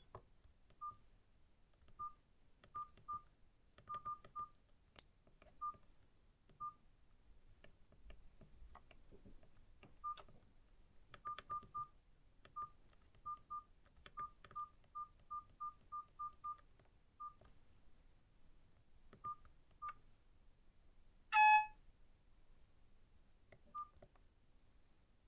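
Keypad beeps from a Nokia 5310 feature phone: about two dozen short, quiet beeps at one pitch, spaced irregularly as buttons are pressed, with faint key clicks. About 21 seconds in comes one louder, brief tone of several notes.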